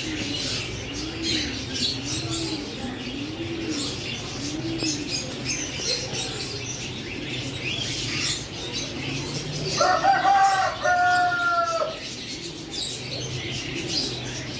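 Mixed cage birds: small birds chirping continually, a low cooing repeated about once a second for the first five seconds, and one loud, drawn-out call of about two seconds about ten seconds in.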